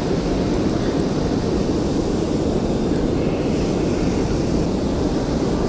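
Steady low rumble aboard a small fishing boat: the outboard motor running for trolling, mixed with wind on the microphone.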